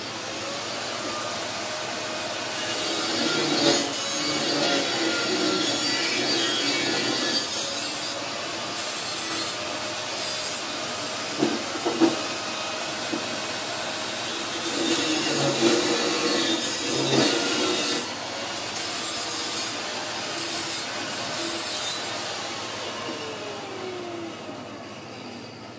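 Steady, loud rasping and scraping from work on a stainless steel dish-rack frame. It swells louder in stretches and fades out near the end, where a falling tone sounds.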